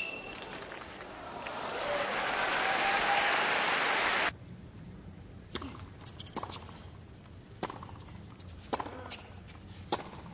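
Crowd applauding at a tennis match, swelling over about four seconds and then cut off abruptly. Then a quieter arena with a few sharp, separate knocks about a second apart, typical of a tennis ball being bounced on the hard court before a serve.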